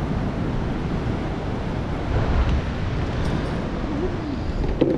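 Wind buffeting the microphone over the steady wash of rough surf.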